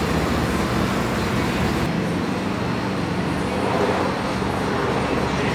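A motor vehicle's engine running steadily with traffic-like noise. The sound changes abruptly about two seconds in, losing its hiss.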